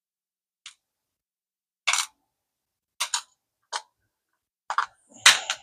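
Sharp plastic clicks and light rattles from handling a small clear plastic parts box holding reel shims, about six in all, the loudest near the end.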